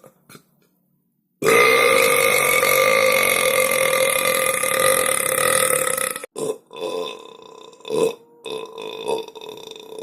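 A person belching. About a second and a half in comes one long, loud, steady burp lasting nearly five seconds, followed by several shorter, quieter burps.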